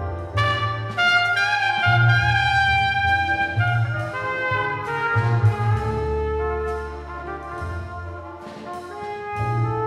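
Cool jazz quintet recording: a trumpet plays a melodic line over deep double-bass notes and drums, with a tenor saxophone in the band.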